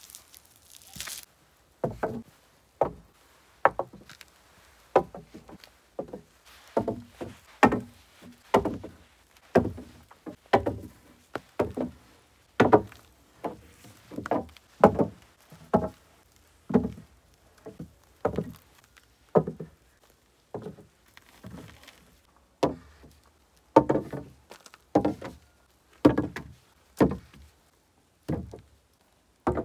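Peeled round logs being laid one by one across a log frame, each landing against the others with a hollow wooden knock. The knocks come about once a second, some in quick pairs.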